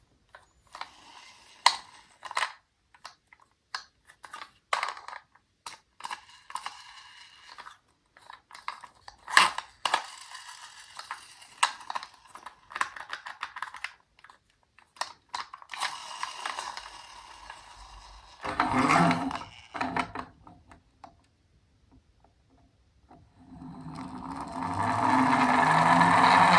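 Toy minicars clicking and rattling as they are handled, with many short sharp clicks. Near the end a louder rolling whir from a toy car's wheels and gears builds up over a couple of seconds.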